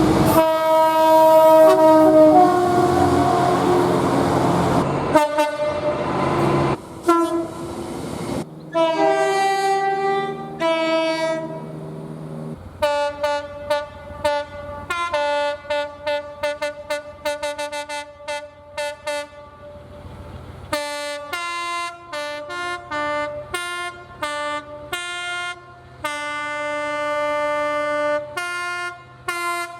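Train horns sounding in a string of blasts, several tones at once. The first few seconds are a long blast over the noise of a passing train. After that comes a long run of quick short toots, then longer blasts again.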